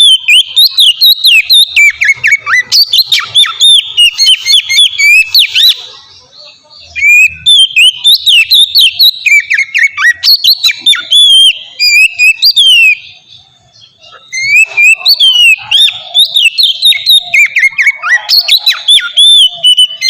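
Oriental magpie-robin (kacer) singing a loud, rapid run of varied whistled notes in the full, open 'ngeplong' style. It comes in three long bouts, with short pauses about six and thirteen seconds in.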